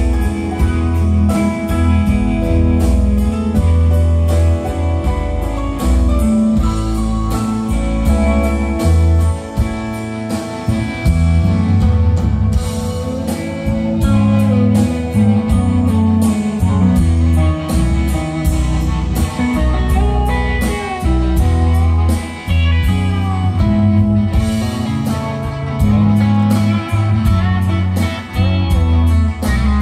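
Live rock band playing an instrumental passage of a ballad: a guitar melody line with gliding, bent notes over bass, drums and strummed guitar, with no singing.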